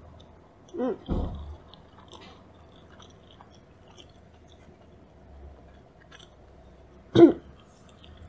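Close-miked chewing of fatty tuna sushi: soft, wet mouth clicks, with a short hummed sound about a second in and another, louder one near the end.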